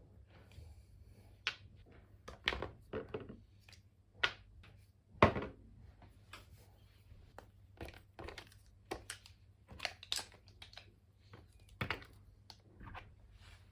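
Irregular short rustles, crinkles and light knocks of things being handled, with one louder knock about five seconds in.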